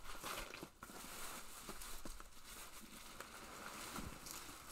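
Faint rustling and crinkling of packing paper and cardboard as a shipping box is opened and the paper inside is pulled out, with small scattered clicks.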